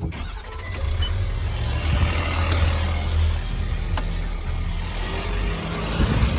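Engine just started and running, a steady low drone that swells briefly a second or two in, with a sharp click around the middle.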